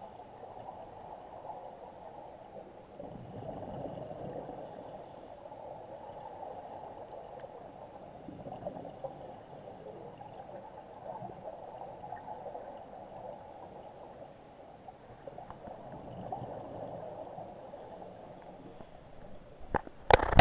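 Muffled underwater rush around scuba divers, swelling every few seconds with their exhaled bubbles, then a few sharp knocks right at the end.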